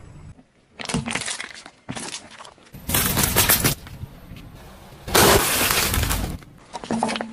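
A car tyre rolling over and crushing crunchy, brittle objects on asphalt: several separate bursts of crunching and cracking, the longest and loudest about five seconds in.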